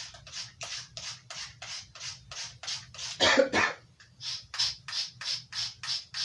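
A steel knife blade drawn in quick, even strokes across a handheld sharpener's grit, about three to four scrapes a second. One louder, heavier scrape comes about three seconds in.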